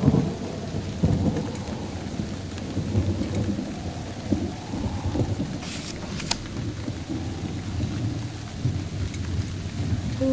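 Thunderstorm sound effect: a thunder rumble dying away at the start, then steady rain with low rolling thunder underneath. Two short sharp clicks come about six seconds in.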